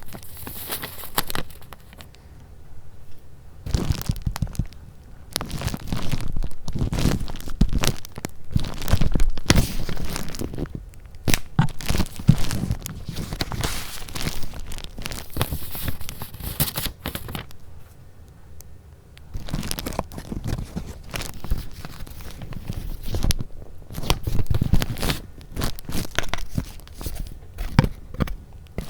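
Paper being handled up close: sheets and paper goods rustling and crinkling, with irregular taps and crackles. There are quieter pauses about two seconds in and again past the middle.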